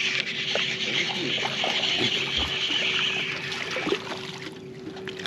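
Water splashing and trickling, dying away about four seconds in, over a faint steady hum.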